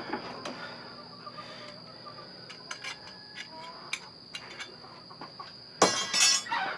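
Faint metal clicks and clinks from a steel conibear trap being handled in a vise, over a steady high insect trill. About six seconds in comes a loud, rough sniff from a man with his hand at his nose.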